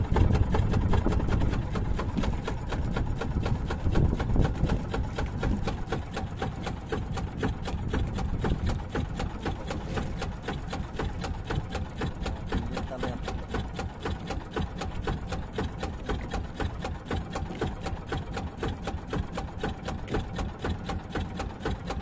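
A small fishing boat's engine runs steadily under way while trolling, with a fast, even beat of firing strokes and a steady hum.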